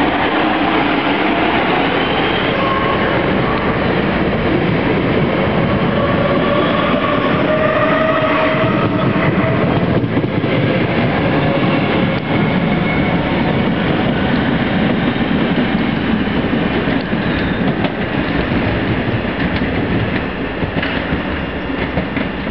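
A Class 465 and Class 466 Networker electric multiple unit pulling away, with a whine from its traction equipment that climbs in pitch as it gathers speed. The wheels click over rail joints and points, and the sound fades slightly near the end as the train draws away.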